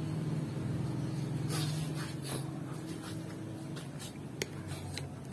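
Steady low mechanical hum with a few light clicks and taps from hand work on a motorcycle's steering head, the sharpest click a little past the middle.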